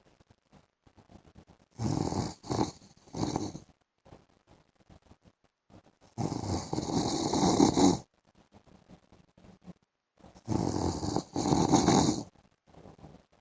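A man snoring in his sleep: three snoring breaths about four seconds apart, with quiet between. The first is broken into three short snorts, the second is long and the loudest, and the third comes in two parts.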